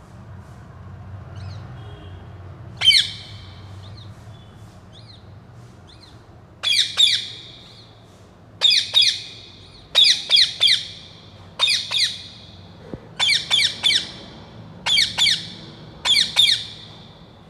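Ringneck parrot squawking: a single loud squawk about three seconds in, then from about six seconds a regular run of squawks in pairs and threes, roughly one group every second and a half.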